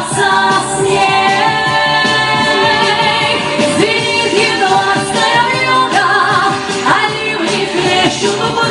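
Female voice singing a pop song over instrumental backing, with long held and sliding notes in which no words are made out.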